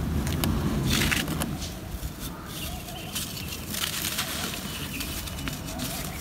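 Lumps of dry red clay crumbling and crushing in bare hands, with loose dry dirt falling onto a dirt floor: grainy crunching that comes in several separate bursts.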